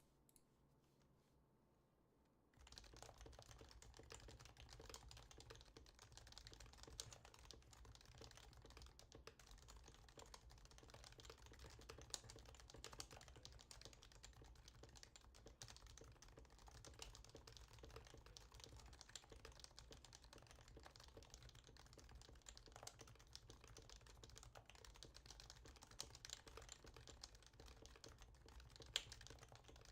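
Fast, continuous typing on a Happy Hacking Keyboard (HHKB) with lubed 55 g Topre electrostatic capacitive switches, starting about two and a half seconds in, with a few louder keystrokes among them.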